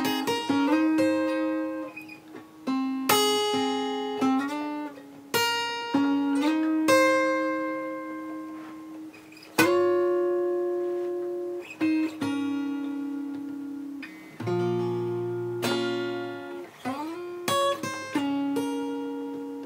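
Solo acoustic guitar, fingerpicked: two-note shapes and short chord figures picked one after another and left to ring, with an upward slide about 17 seconds in. It is a fill moving down the neck from the 10th and 11th frets through the 9th to the 7th to get from A to a B minor sound.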